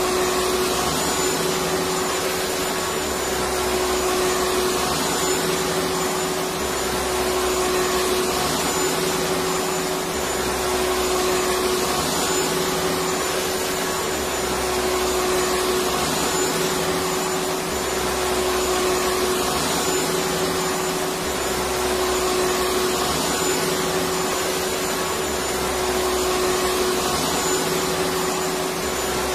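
Electric vacuum cleaner running steadily: a continuous whooshing motor noise with a steady hum, and a low throb that comes and goes every few seconds.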